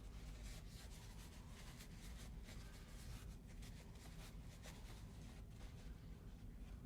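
Faint, irregular scratching and rubbing strokes from cleaning the greasy, grimy parts of a disassembled Master Lock 220 padlock by hand.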